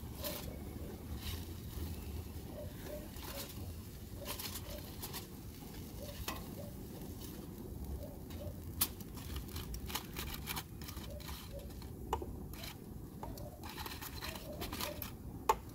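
Metal tongs clicking and scraping on aluminium foil as charred tomatillos, tomatoes and serrano peppers are picked up and dropped into a plastic blender jar, with foil crinkling in between. The clicks are irregular, a few sharper ones stand out with the loudest near the end, and a low steady rumble runs underneath.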